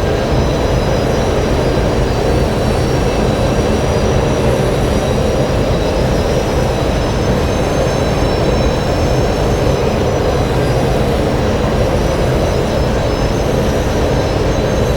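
Star Wars V-wing starfighter engine sound effect heard from outside: a steady, unchanging engine drone with a low rumble and thin high tones running above it.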